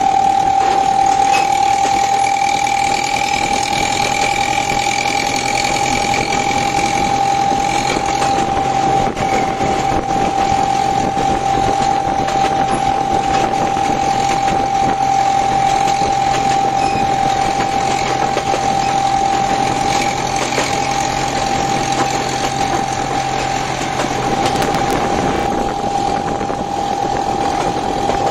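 Narrow-gauge train running, its engine giving a steady high-pitched whine over continuous running noise.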